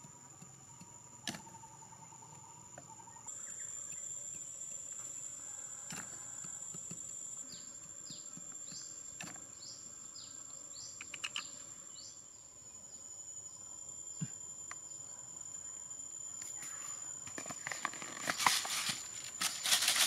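Insects buzzing at a steady high pitch, with a run of short falling chirps in the middle. Scattered sharp taps from a small metal hoe working a bamboo trap frame into sandy ground. Near the end comes a louder rapid pattering of grain poured from a plastic bottle onto the ground.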